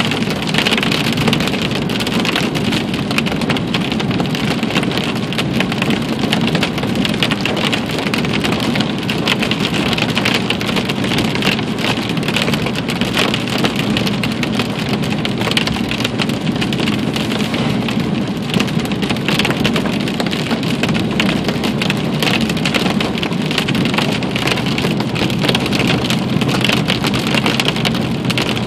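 Heavy rain pelting a car's windshield and roof, heard from inside the car as a steady, dense patter of drops with a low rumble underneath.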